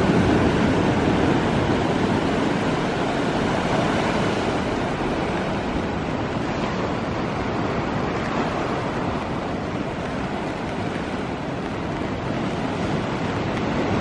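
Ocean surf washing on the beach with blustery wind, a steady rushing that eases slightly over the stretch.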